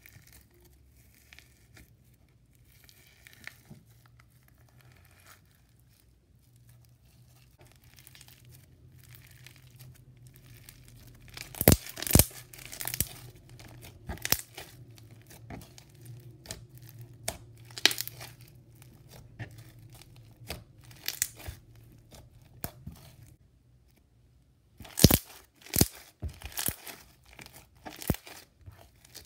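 White glue floam slime packed with white and blue foam beads, pressed and squished by hand, crackling and crunching as the beads give. The crackles come irregularly, faint at first, with the loudest crunches about twelve seconds in and again near the end.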